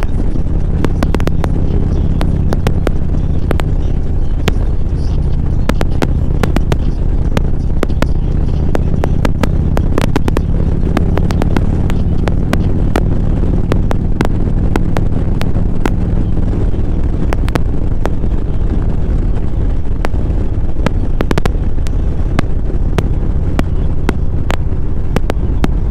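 Vehicle engine and road noise while cruising in traffic: a steady low drone, overlaid with frequent irregular sharp clicks.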